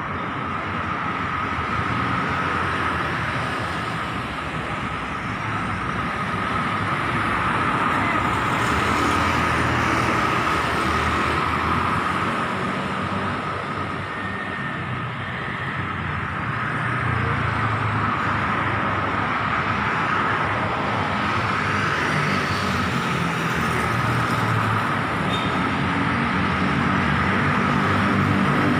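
Road traffic on a busy multi-lane street: cars and motorcycles passing in a steady stream, swelling and easing as vehicles go by.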